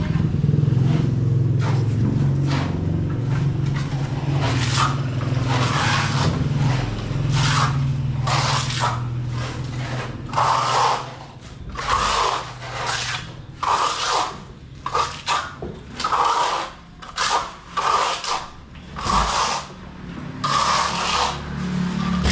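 Repeated scraping strokes of a hand tool drawn across a wall surface, roughly one a second and most distinct in the second half. A steady low hum runs under the first half and fades out about halfway through.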